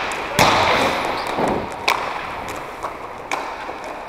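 Sharp clacks of hockey sticks and puck on a hard court floor, echoing in a large gymnasium. A loud one comes about half a second in, then sparser, quieter ones near two, three and three and a half seconds.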